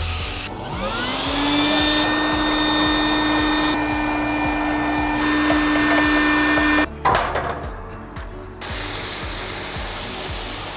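Spray hissing while an AC condenser coil is washed down. About half a second in, a small motor spins up to a steady whine; it cuts off suddenly about seven seconds in, and the spray hiss returns near the end.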